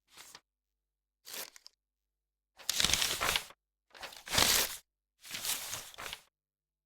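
Paper foley: five separate bursts of paper being handled, two short, faint ones followed by three louder ones of about a second each, with dead silence between them.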